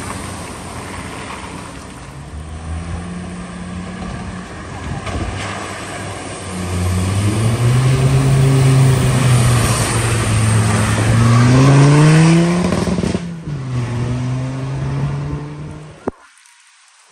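A car engine pulling through deep floodwater over a steady wash of water noise. It grows louder about seven seconds in, rises in pitch as it revs, drops back sharply, then carries on until it cuts off suddenly near the end.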